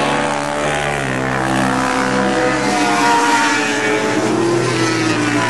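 Racing quad (ATV) engines revving hard, their pitch rising and falling.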